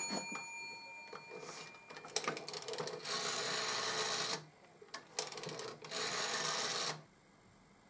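A click near the start, then the rotary dial of a GPO 746-style telephone dialled twice: each time a short run of clicks as the finger winds the dial round, then about a second and a half of whirring as it spins back on its own.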